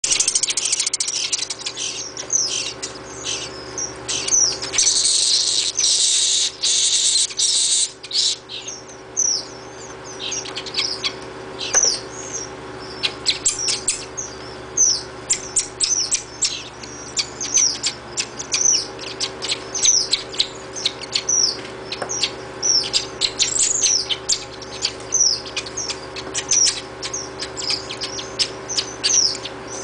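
Nestling chimney swifts begging to be fed: a chorus of rapid, high, downward-sliding chittering calls. For a few seconds in the first third the calls run together into a continuous chatter, then they break into quick separate chips.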